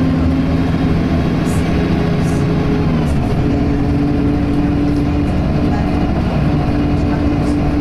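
Optare Tempo single-deck bus under way, heard from inside the saloon: the drivetrain of its Allison automatic gearbox gives a steady whine, which the uploader likens to a Voith transmission's and doubts is normal for an Allison. About three seconds in, the whine steps up to a higher steady pitch.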